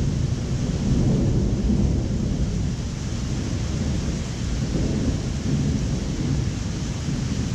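Thunder rumbling low and continuously through a thunderstorm, over the steady hiss of rain.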